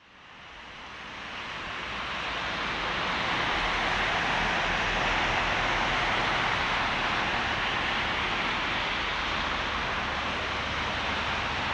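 Distant Airbus A330-300 with Rolls-Royce Trent 700 engines on final approach: a steady rushing jet noise with a low rumble beneath, fading in over the first few seconds.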